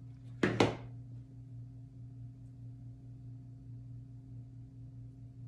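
Steady low electrical hum, with one brief double clatter about half a second in.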